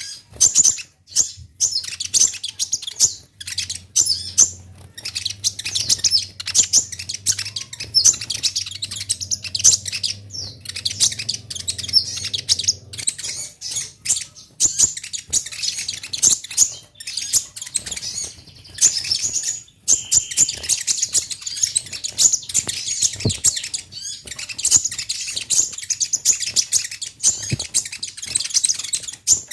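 Konin (kolibri ninja) sunbird singing: rapid, high-pitched chirping and twittering phrases in quick succession, broken by short pauses. A faint low hum sits under the song for about ten seconds early on.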